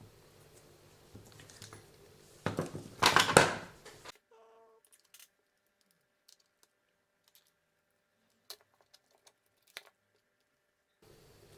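Close handling noise of hands and tools working on small RC car parts: a loud scraping, rustling burst lasting about a second and a half. It is followed by near silence with a few faint clicks.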